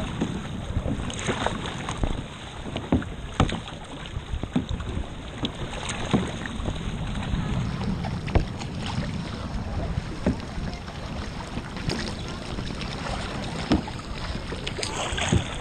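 Paddling a sit-on-top kayak on the sea: paddle strokes splashing in the water, with irregular sharp knocks, over a steady rush of wind and water.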